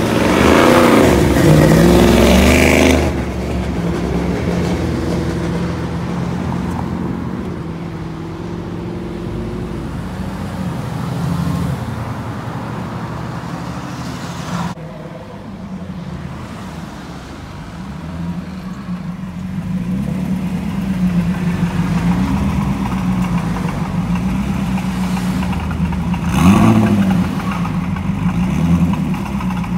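Mercedes-AMG GT C Roadster's twin-turbo V8 revving hard as it pulls away, loud for the first three seconds, then running more quietly as it drives off. After a cut, a Lotus Esprit's engine idles with light throttle blips and one sharper rev near the end.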